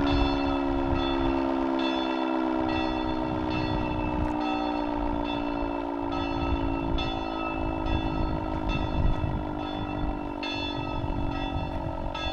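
Fire-station rotor siren winding down after a test, its rough tone sinking slowly in pitch. Over it, repeated high ringing strikes come about three every two seconds.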